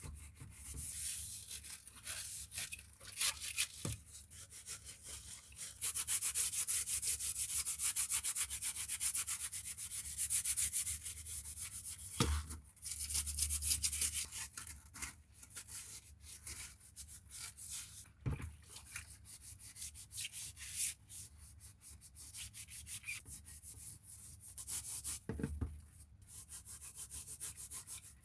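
Scouring sponge scrubbing soapy water-dispenser parts in a plastic tub: fast, continuous back-and-forth rubbing strokes, heaviest over several seconds in the first half, with a few dull knocks along the way.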